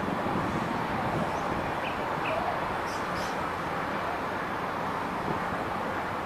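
Steady, even noise of a twin-turbine NAS332 Super Puma helicopter flying past at a distance, its rotor and engines heard as a broad, constant rush. A few faint, short high chirps come around two and three seconds in.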